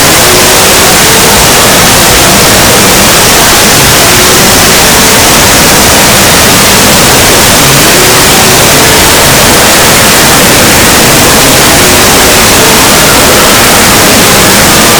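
Extremely loud, heavily distorted sound effect clipped at full volume: a steady harsh wall of static-like noise with faint wavering tones buried in it.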